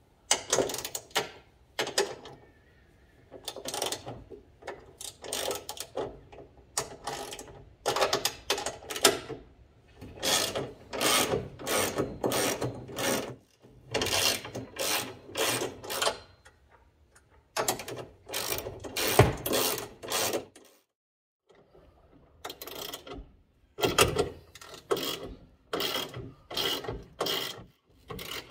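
Ratchet wrench clicking in repeated back-and-forth strokes as it loosens a bolt on a golf cart's roof strut, with a couple of short pauses between runs.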